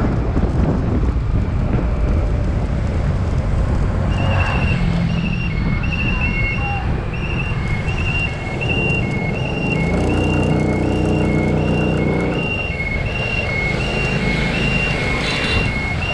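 Street traffic with engines running throughout. From about four seconds in, an electronic reversing alarm beeps steadily, alternating a higher and a lower note about once every two-thirds of a second. About ten seconds in, an engine hum rises for a couple of seconds.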